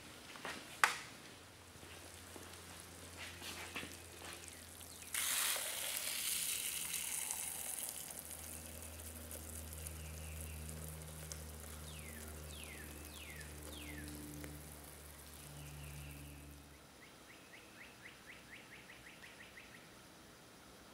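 Hot molten matsuyani pitch (pine rosin, plaster and oil) poured into a thick steel bowl, sizzling and hissing: it starts suddenly about five seconds in and slowly dies down. Under a second in there is a single sharp clack, and near the end a run of faint rapid ticks.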